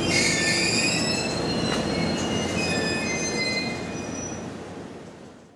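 Commuter train running along the platform, its wheels squealing in several thin high tones over a steady rumble. The sound fades away over the last second or so.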